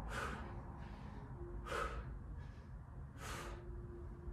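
A man's hard exertion breaths, three short forceful exhales about a second and a half apart, one with each rep of a two-legged hip thrust.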